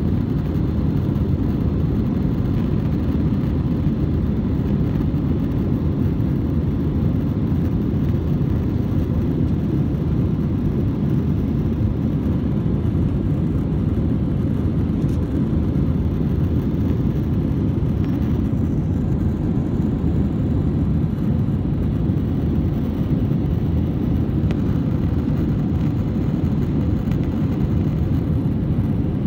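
Steady low rumble of a jet airliner's engines and rushing air heard inside the passenger cabin during the climb after takeoff, with a faint steady hum above it.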